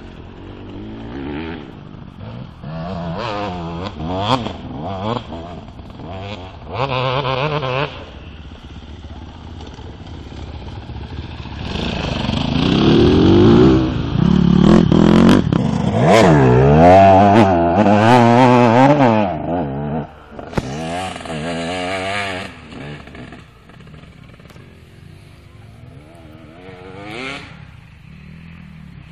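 Enduro dirt bike engine revving in repeated throttle bursts, its pitch rising and falling as the rider works it up a rough climb. It grows loud as the bike passes close about halfway through, then fades, with one more short rev near the end.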